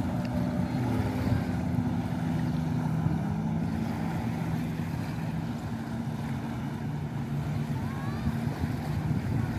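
Jet ski engine running steadily under load as it pumps water up the hose to a flyboard, its note shifting slightly as the throttle changes, with a hiss of water spray.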